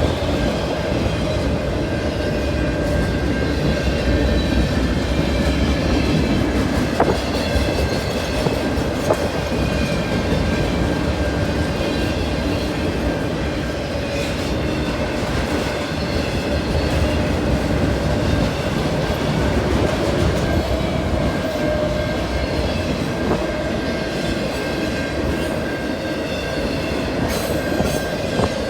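A train rolling past, its railcar wheels clattering over the rail joints with a steady, continuous rumble.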